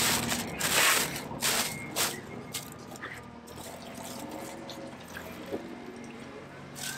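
Thin plastic liner crinkling and rustling as it is handled over a box of frozen fish, loudest in the first two seconds, then a few soft clicks and rustles.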